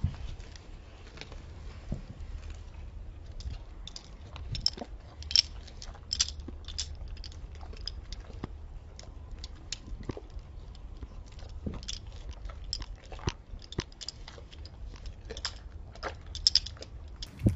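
Yellow Labrador retriever eating cake crumbs off brick paving: steady chewing and licking, heard as a rapid run of short mouth clicks and smacks.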